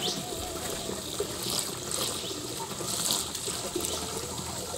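Water pouring steadily from a hose into a plastic backpack sprayer tank, splashing into the foaming water already inside as the tank fills.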